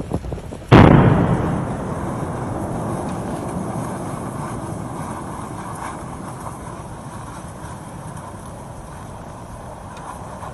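A sudden loud explosive boom about a second in, followed by a long low rumble that slowly fades: the sound of a volcanic eruption blast.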